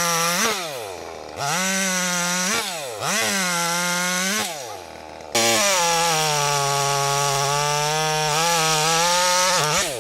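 Petrol chainsaw engine revving at full throttle: the pitch falls away as the throttle is released and jumps back up when it is opened again, three times in the first half. It then holds a long, steady high-speed run and drops off again near the end.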